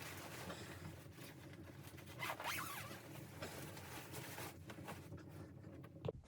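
A zipper being drawn in several rasping pulls, the strongest a little over two seconds in, with a sharp click near the end.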